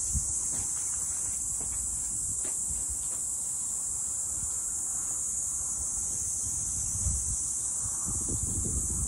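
Steady high-pitched insect chorus, with wind buffeting the microphone in low, uneven rumbles that are heaviest near the end.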